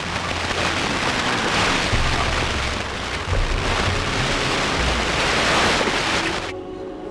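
A loud rushing hiss with low rumbling gusts, like wind buffeting a microphone, cutting off abruptly about six and a half seconds in. Faint steady music tones take over near the end.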